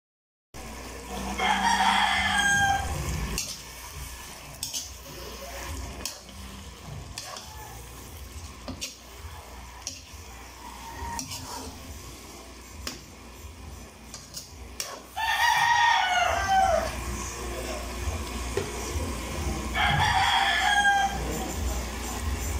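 A rooster crows three times, each crow about one to two seconds long, the first near the start and the other two in the last third. Between the crows a metal spatula scrapes and clicks against a wok of simmering stew.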